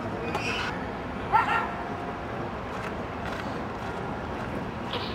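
One short, sharp cry about a second and a half in, rising in pitch and then held briefly, over steady background noise.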